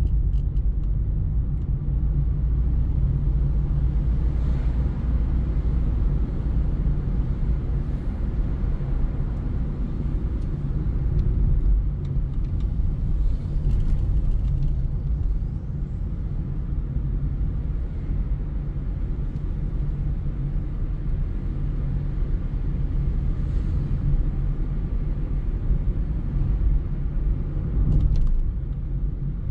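Steady low rumble of engine and tyre noise inside a car's cabin while driving along a city street, with a few faint clicks and bumps.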